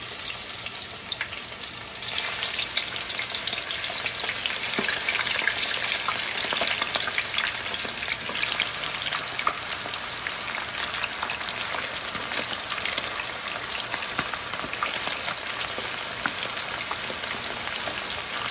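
Unbreaded chicken wings deep-frying in hot oil: a steady, crackling sizzle that grows louder about two seconds in.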